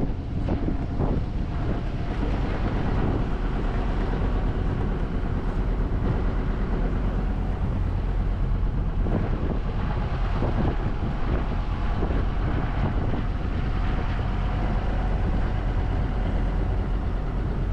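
Small sightseeing motorboat's engine running steadily under way, with wind buffeting the microphone.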